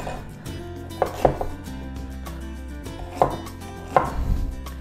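A large kitchen knife chopping through raw potatoes onto a wooden cutting board: sharp knocks, two close together about a second in, then single ones near three and four seconds.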